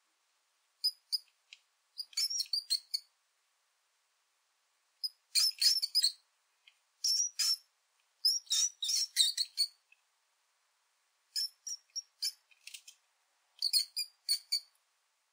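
Mouse squeak sound effect: quick high-pitched squeaks in short clusters, about seven bursts broken by silence.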